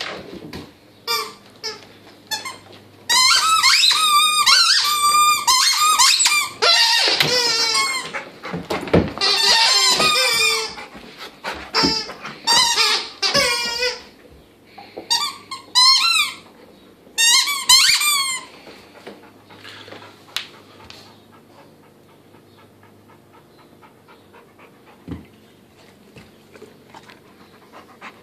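Squeaker inside a plush alligator dog toy squeaking over and over as a golden retriever chews it, in long runs of rapid, high, wavering squeaks. The squeaking stops about two-thirds of the way through.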